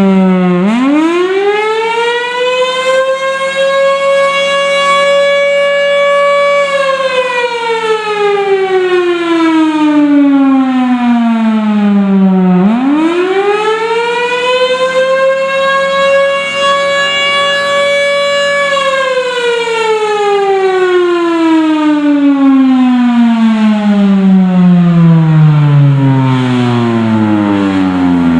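Federal Signal Thunderbolt 1000 outdoor storm siren sounding a test wail. It winds up to full pitch in about two seconds, holds steady for about four seconds, then slides slowly down for about six seconds before winding up again. After the second hold it winds down slowly until the end.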